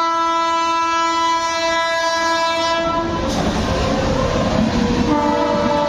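Indian Railways locomotive horn sounding one long steady blast of about three seconds, followed by the rumble of the running train. A second horn blast at a different pitch starts near the end.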